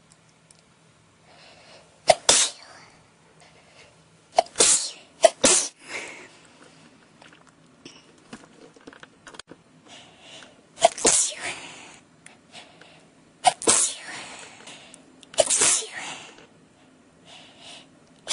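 A person sneezing over and over in a sneezing fit: about six loud, sudden sneezes at uneven intervals, two of them in quick succession.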